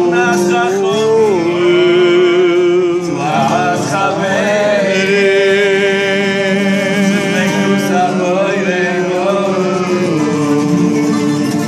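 Man singing long, drawn-out notes with a wavering pitch, accompanied by strummed acoustic guitars.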